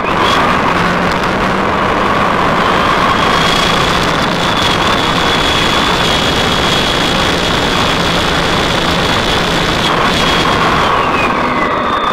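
Motorcycle riding on a freeway: a loud, steady rush of wind noise on the microphone over the bike's running engine and road noise.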